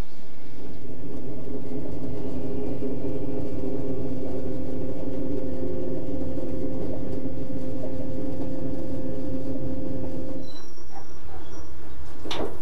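Electric passenger train running on the rails with a steady motor hum over the rumble of the wheels. The hum stops about ten seconds in, and a sharp clunk from a door being opened follows near the end.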